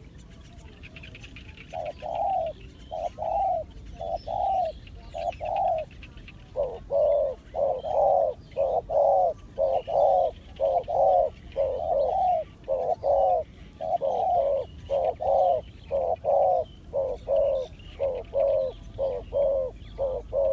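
Spotted dove cooing: a long run of short, low coo notes that starts about two seconds in, sparse at first and then about two a second. Faint chirps of small birds sound behind it.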